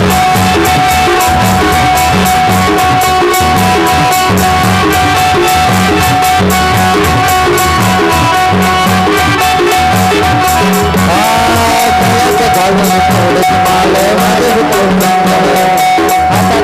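Instrumental passage of a Marathi gondhal devotional song: a long held melody note over a fast, steady drum beat.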